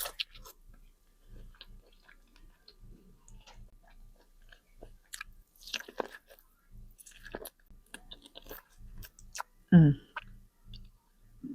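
Close-up chewing of seafood: wet smacks and short mouth clicks, irregular and fairly soft. About ten seconds in comes a loud hummed 'mm' that falls in pitch.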